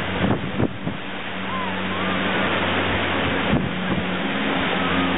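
Twin-engine Canadair firefighting amphibian flying overhead, its engines a steady low drone under heavy wind noise on the microphone, with a few dull thumps.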